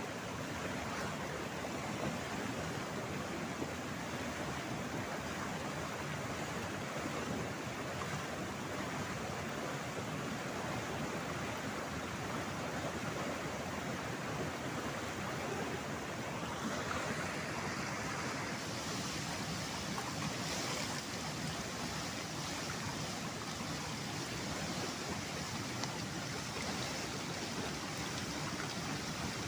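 Steady rush of a fast-flowing, swollen river pouring over rocks. A little past halfway the sound turns brighter and hissier, as of falling water.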